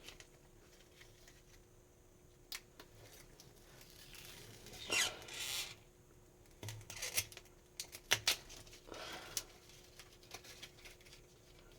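Small handling noises from hands working with a phone's replacement glass and its parts: soft rubbing and rustling, the loudest about five seconds in, among scattered light clicks and taps.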